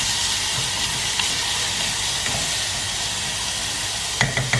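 Finely chopped vegetables sizzling steadily as they sauté in hot oil in a small aluminium saucepan. A few sharp knocks of a wooden spoon against the pan come near the end.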